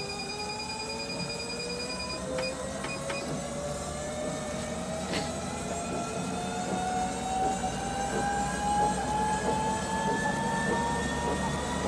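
NoblePro Elite E8i treadmill's drive motor whining as the belt speeds up toward 10 km/h, the pitch rising steadily and levelling off near the end. A steady high tone cuts off about two seconds in, followed by a few short high beeps.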